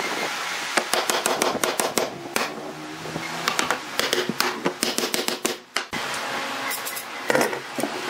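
Irregular knocking and tapping of woodworking tools on wood.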